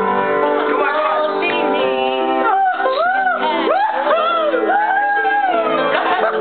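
Singing over a music backing in a made-up comic song. Steady held chords underneath, and from about halfway in the voice swoops up and down in pitch.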